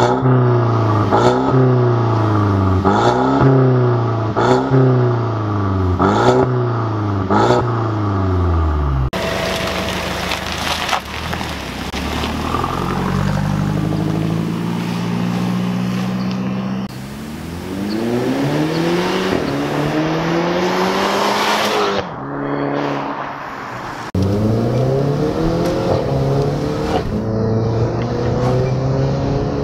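Mercedes-Benz W205 C200's turbocharged four-cylinder revved through an aftermarket valved exhaust with the valves open, about six quick blips, each rising and falling. Then the car accelerates, its engine note rising through each gear, heard from outside and later from inside the cabin.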